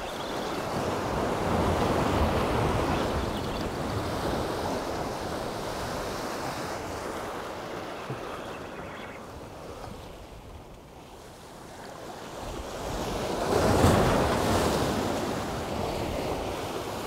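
Sea waves surging and washing against shore rocks, with wind buffeting the microphone. The wash swells about two seconds in, eases off, then rises to a louder surge near the end.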